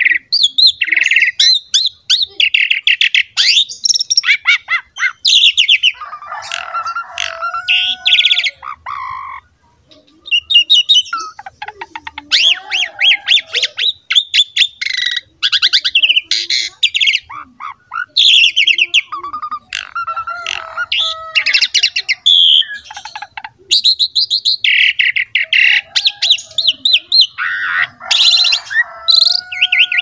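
Pied starling (jalak suren) singing a long, loud song of rapid chattering trills, whistles and harsh squawky notes. It pauses briefly twice, about a third of the way in and again near three-quarters.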